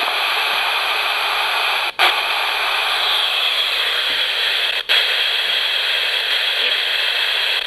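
Steady white-noise static from a radio scanning two stations with no antenna, used as a ghost box. The hiss cuts out briefly twice, about three seconds apart.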